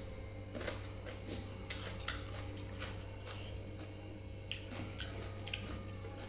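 Fingers mixing and squishing water-soaked rice (pakhala) against a steel plate, with scattered short wet clicks and mouth smacks of eating, over a steady low hum.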